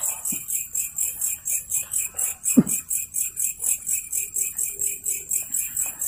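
Night insects chirring in a steady, rapid pulse of about five beats a second. A short low vocal sound cuts in about two and a half seconds in.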